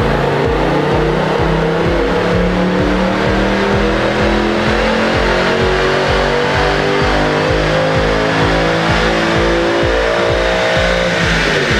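Mercedes C 63 AMG's 6.2-litre V8 under full throttle on a roller dynamometer, its revs climbing slowly through a long single-gear power pull. The revs fall away near the end as the run finishes.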